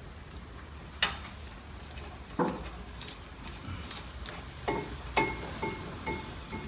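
Metal clicks and knocks as a steel brake caliper bracket is fitted against the steering knuckle and its bolt holes lined up, then a run of short, light metallic pings about twice a second in the second half.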